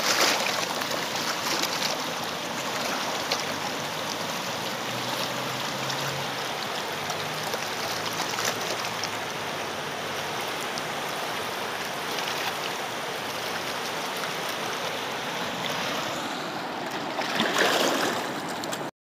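Fast river water rushing over rocks in rapids, a steady loud rush, with a louder surge near the end before it cuts off.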